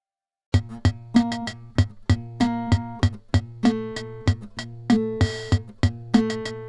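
Instrumental music starts about half a second in, out of silence: a drum-machine beat of regular sharp hits over a steady bass line and repeated pitched notes.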